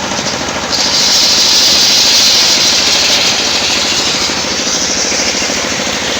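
Engine-driven circular sawmill running at speed, its blade biting into coconut wood about a second in, with a loud high cutting hiss over the engine that slowly eases.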